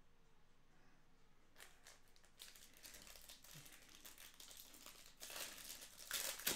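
Trading card pack wrappers crinkling and tearing as packs are ripped open. The crackling starts about a second and a half in and is loudest near the end.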